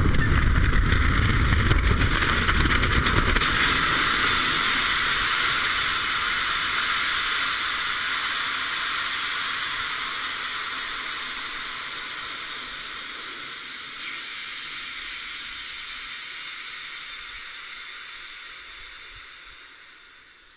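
Ethanol–nitrous oxide liquid rocket engine firing on a static test stand: a loud rushing roar with a deep rumble for the first few seconds, then a steady hiss that slowly fades and dies away near the end.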